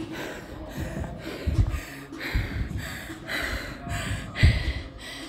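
A person breathing hard after a workout: quick, gasping breaths about twice a second. A few dull thumps, the loudest near the end.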